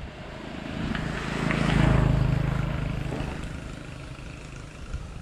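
A motor engine passing by, its hum swelling to a peak about two seconds in and then fading away.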